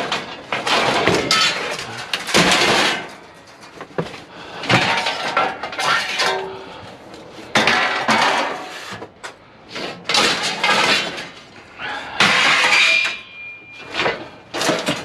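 Scrap metal clattering and clanking as pieces are pulled from a cluttered pile and tossed down, in repeated bursts every second or two. Near the end one piece rings briefly with a high tone.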